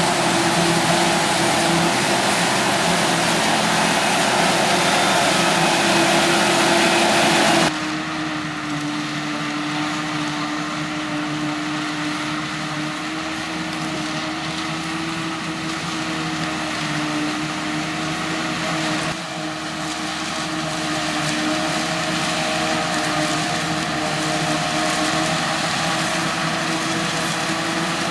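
Forage harvester and tractor engines running steadily during maize chopping: a continuous mechanical drone with a few steady engine tones. The sound changes abruptly about 8 seconds in and again near 19 seconds, dropping then rising slightly.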